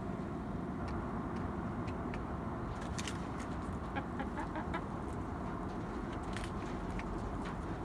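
Steady outdoor background noise with scattered short clicks and a few faint short calls, most of them in the middle of the stretch.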